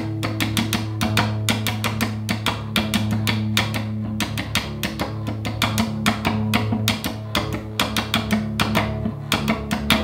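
Electric cello played without a bow, its strings struck and plucked by the right hand in a quick rhythm of about four to five strokes a second over low notes that keep ringing.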